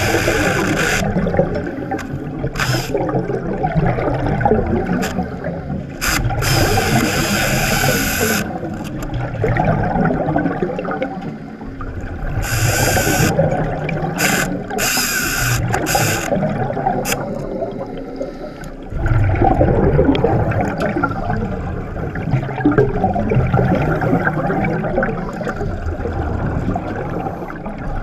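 Hydraulic chainsaw running underwater, a continuous rough mechanical rattle heard from beneath the surface, dipping briefly twice. Several short hissing bursts, likely from a scuba diver's regulator exhaling bubbles, rise over it partway through.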